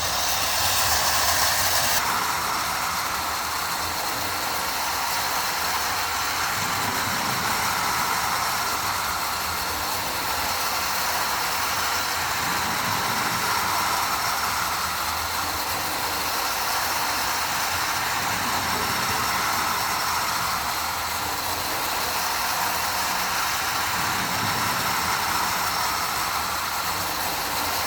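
Marx Commodore Vanderbilt electric tin toy train running on O-scale track: a steady whirring rattle of the motor and tin cars, swelling a little about every six seconds.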